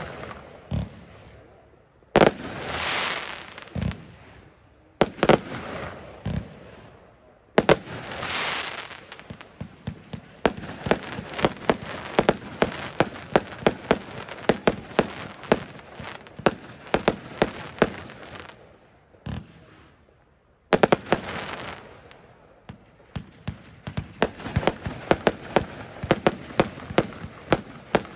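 Lesli Powerhouse F2 consumer firework battery firing. There are single shots with a hissing rise and a bang over the first several seconds, then a fast run of bangs and crackles. About twenty seconds in it stops for a second or so, then fires another fast run of shots.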